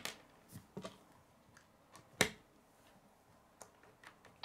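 Plastic K'nex rods and connectors being handled and snapped together, knocking on a wooden tabletop: scattered sharp clicks, the loudest a little past two seconds in.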